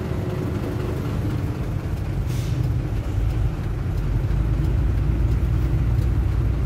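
Mitsubishi tronton truck's diesel engine rumbling inside the cab as the truck rolls at low speed, a little louder in the second half, with a short hiss about two seconds in.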